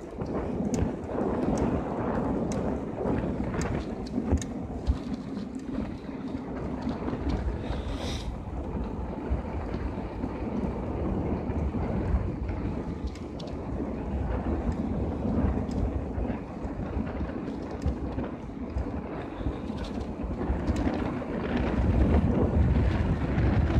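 Wind buffeting the microphone of a handlebar-mounted camera on a moving bicycle, over the rumble of tyres rolling on asphalt, with frequent small clicks and rattles from the bike. It gets louder near the end.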